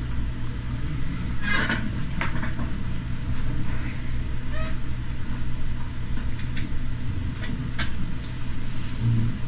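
Steady low rumble of room noise, with scattered soft clicks of typing on a computer keyboard.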